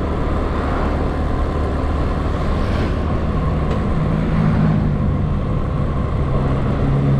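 Motorcycle engine running steadily on the move, heard through a helmet-mounted camera's microphone along with road noise. A low engine note grows stronger in the second half.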